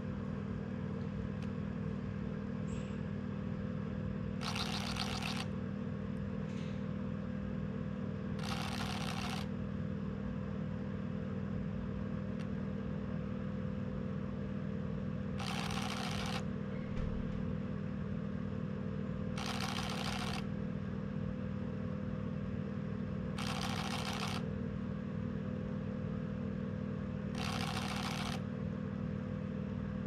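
A tiny 8×16 mm coreless DC motor in a fishing-lure prototype runs steadily, spinning plastic wing blades that beat the water in a basin, with a continuous buzz. Six short bursts of hiss, each about a second long, rise above the buzz at intervals of four to seven seconds.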